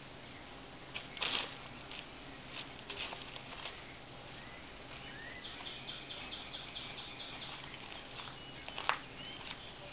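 Outdoor ambience with short bird chirps and a rapid run of high ticks partway through. Over it are a few sharp scuffs and knocks of footsteps on stone steps and wood-chip mulch, the loudest about a second in and another near the end.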